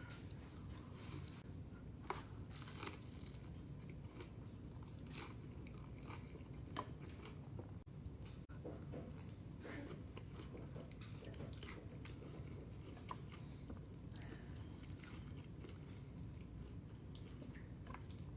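Close-miked eating sounds: a person chewing and crunching food, with scattered short crisp bites over a steady low background hum.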